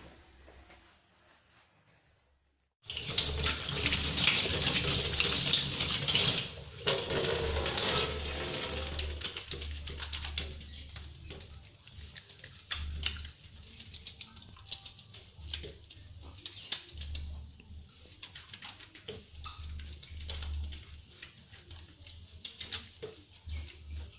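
Tap water running at a sink as hands are washed, starting suddenly about three seconds in and loudest for the next six seconds, then giving way to quieter intermittent splashes and small knocks.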